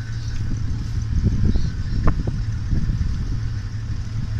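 Open safari vehicle's engine running with a steady low rumble, with a few brief sharp sounds about two seconds in.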